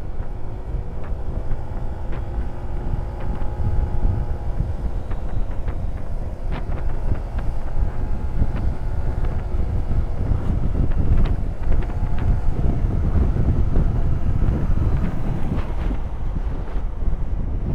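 Wind buffeting the microphone on a moving motorcycle, with the engine's hum faintly underneath, its pitch drifting up and down.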